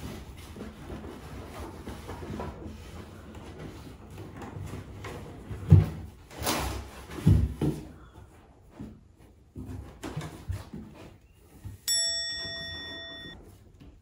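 A few dull thumps as cats move in and around a cardboard box. About twelve seconds in, a bright bell-like ding sound effect rings out and fades over a second or so.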